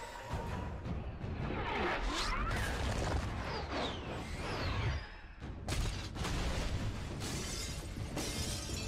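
Film action sound effects of glass shattering and crashing debris, with whooshes, mixed with music. Sweeping pitch glides run through the first half, and the sound drops away briefly about five seconds in before the crashing resumes.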